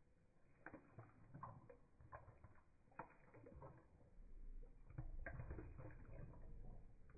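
Siberian husky lapping water from an enamel bowl: faint, irregular wet clicks and splashes of the tongue in the water. A low rumble joins about four seconds in.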